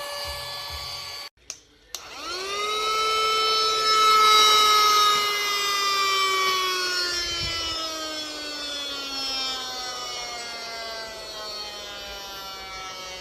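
Handheld cordless vacuum cleaner's motor whining. It cuts out a little over a second in, starts again near two seconds in with a quick rise in pitch, then its pitch sinks slowly.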